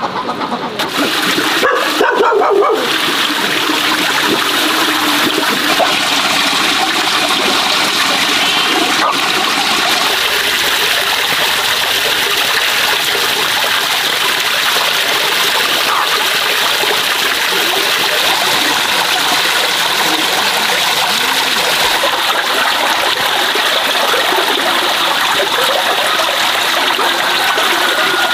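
Water running steadily from a pipe and splashing into a plastic basin while pig intestines are rinsed and sloshed by hand. A short animal call sounds near the start.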